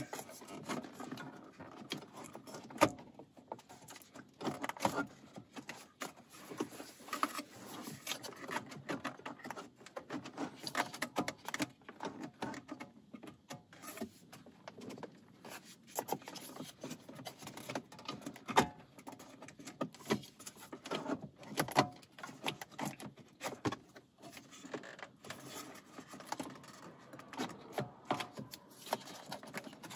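Irregular plastic clicks, knocks and rattles of a Lexus CT's factory radio unit being wiggled and pulled forward out of the dash by hand, with a few sharper knocks along the way.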